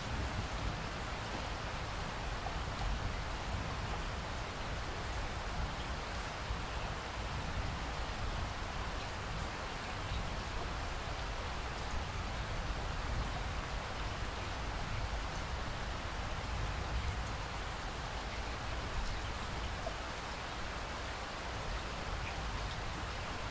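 Steady rain falling: an even hiss with a low rumble beneath it.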